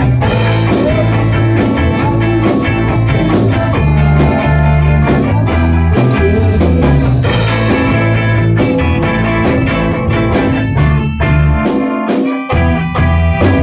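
A rock band plays an instrumental passage: guitar over a steady bass line and drum kit. The low end briefly drops out about twelve seconds in, then the band comes back in.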